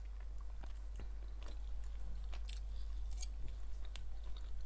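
A person chewing a mouthful of food with the lips closed, close to a clip-on microphone, with scattered soft wet mouth clicks.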